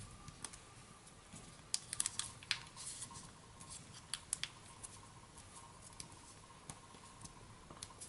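Faint rustling and crinkling of origami paper being folded and creased by hand, with a cluster of crisp crackles about two seconds in and another about four seconds in.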